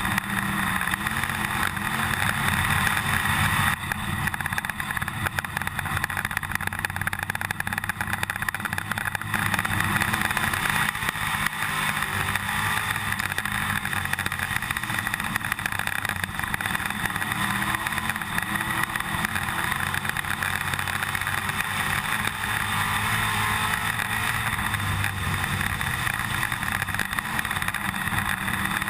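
IMCA stock car's V8 engine running steadily at a reduced caution-lap pace, heard from inside the cockpit, over a constant rattle from inside the car.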